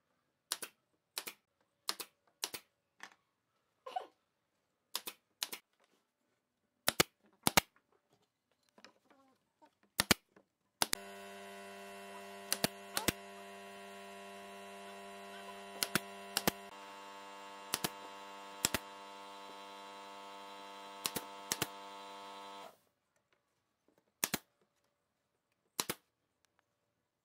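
Pneumatic brad nailer firing nails into pine boards, sharp single shots at irregular intervals, about twenty in all. From about a third of the way in, a steady machine hum runs under the shots and cuts off suddenly near the end.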